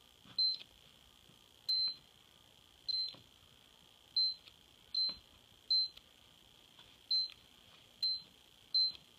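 Lowrance Elite 4x HDI fish finder's keypad beeping as its buttons are pressed to step through the menus: nine short, high beeps at uneven intervals, about one a second. A faint, steady high whine sits underneath.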